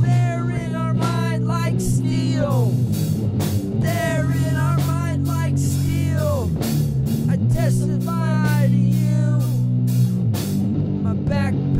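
Instrumental stretch of a heavy rock song: an electric guitar lead with bending notes over held bass notes and a drum beat.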